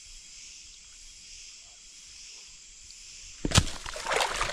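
Steady chirring of night insects, crickets among them. About three and a half seconds in there is a sudden sharp knock, followed by a brief scuffle of ragged noise.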